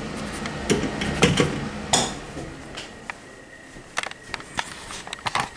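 Nutone blower-wheel bathroom exhaust fan running with a steady hum that fades out about two seconds in, under a run of sharp clicks and knocks. The owner hears bearing noise in it and takes it for restricted, moving hardly any air.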